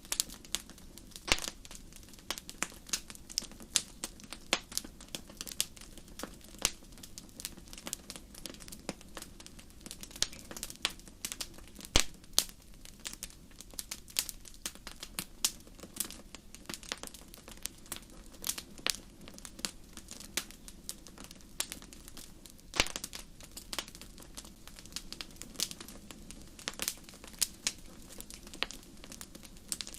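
Wood fire crackling: irregular sharp pops and snaps, a few louder ones standing out, over a steady low rumble.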